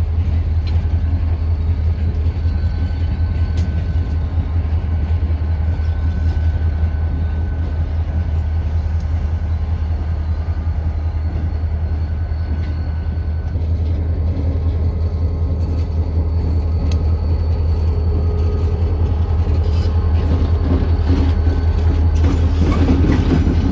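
Diesel freight locomotive running close by, a deep steady engine hum with faint clicks and clanks, a little busier near the end.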